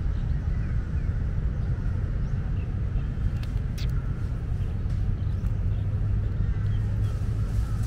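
Steady low outdoor rumble with a few faint chirps and a couple of soft clicks near the middle.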